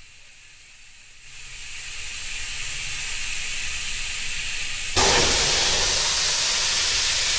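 Compressed air hissing from an air nozzle into a motorcycle tire through its valve stem with the valve core removed, to force the beads onto the rim. The hiss builds over a few seconds, then jumps suddenly louder about five seconds in and holds steady.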